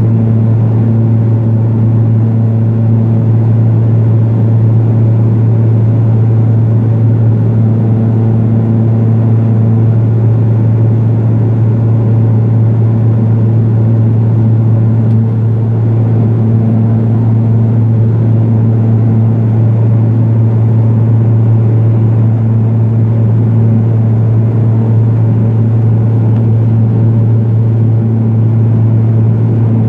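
Cabin noise inside a Pilatus PC-12 in flight: its single PT6A turboprop engine and propeller running steadily, a loud, even low hum over a rushing spread of engine and air noise.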